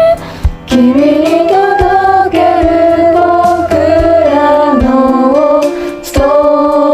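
Pop song: several voices singing long held notes in harmony over a band backing with a steady drum beat.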